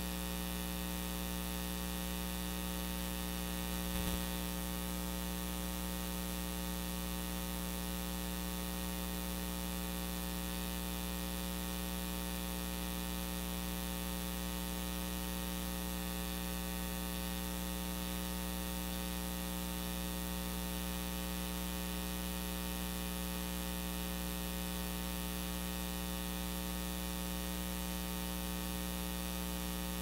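Steady electrical hum and buzz: a stack of many unchanging tones with hiss above, and one faint click about four seconds in. No speech is heard.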